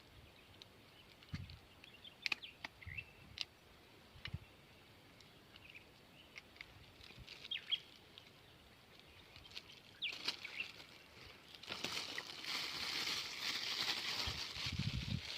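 Faint outdoor sounds: scattered small clicks and short chirps, then rustling and handling noise with a few low knocks from about twelve seconds in.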